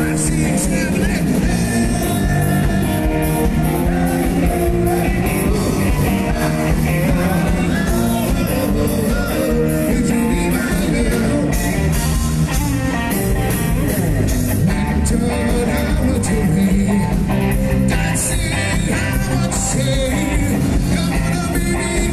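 Live band music: singing over a full band with drums and a steady, even beat.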